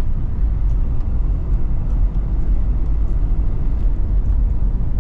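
Toyota Prado SUV on the move: a steady low rumble of engine and road noise.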